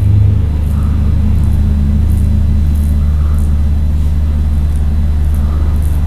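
Steady low hum, with faint soft swishes of fingertips rubbing in small circles on the skin of the cheek, repeating about every two-thirds of a second as the masseter is massaged.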